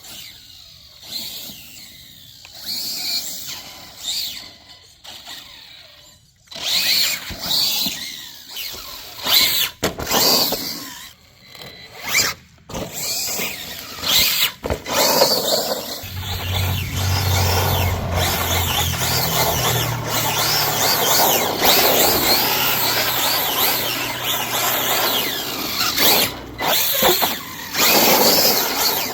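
Losi LMT RC monster truck's brushless electric motor and gears whining in irregular bursts as the truck accelerates and lets off. From about halfway through, the whine runs almost without a break, rising and falling in pitch with the throttle.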